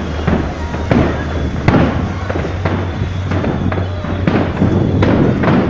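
Fireworks display: a run of sharp bangs and crackles from bursting shells, roughly two a second at uneven spacing, over a steady low rumble.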